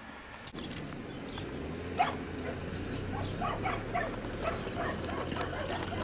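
Dogs barking and yelping in quick, irregular short bursts from about two seconds in, over a low steady hum.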